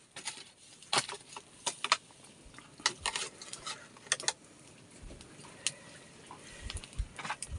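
Scattered light clicks and metallic clinks, irregularly spaced, as a wire fish-grilling basket is handled and set over a pot of glowing charcoal.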